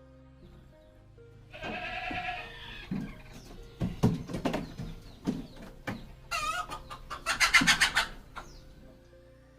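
Goat bleating twice, a long call and then a wavering one, with a few sharp knocks between them, over background music.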